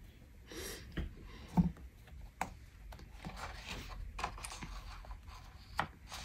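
A hardcover picture book being opened and its pages turned and pressed flat: soft paper rustling and sliding with a few light taps and knocks, the firmest about a second and a half in.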